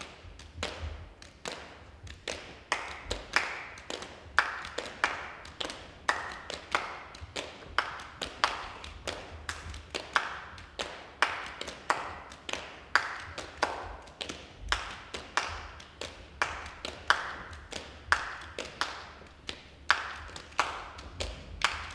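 Dancers' body percussion: a rhythmic pattern of hand claps and taps with occasional light thuds, played without accompaniment.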